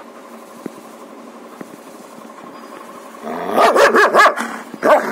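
German Shepherd barking angrily in a sudden quick burst of several barks about three and a half seconds in, then one more bark near the end.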